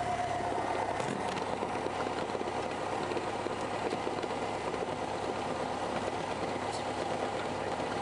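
Small aircraft's engine running steadily, with a faint steady tone in the first second or so.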